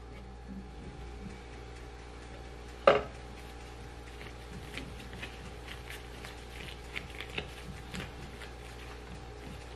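Gloved hands handling dense chocolate cookie dough in a glass bowl on a kitchen scale: one sharp knock against the glass about three seconds in, then small taps and clicks as the dough is weighed and shaped, over a steady hum.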